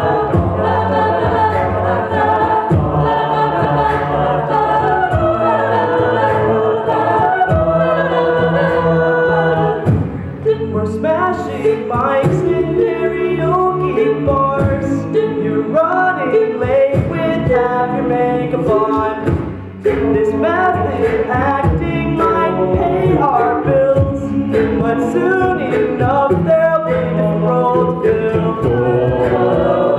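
A mixed-voice a cappella group singing a pop song cover through handheld microphones, with layered voices over a low sung bass line.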